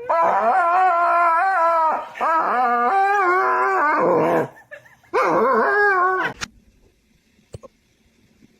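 A dog howling: three long howls that waver up and down in pitch, with short breaks between them.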